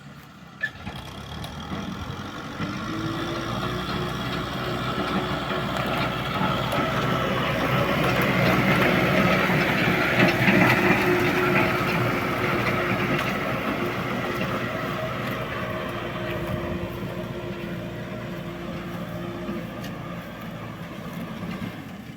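Kubota M6040S tractor's diesel engine running steadily under load while ploughing. It grows louder to a peak about halfway through, then fades gradually.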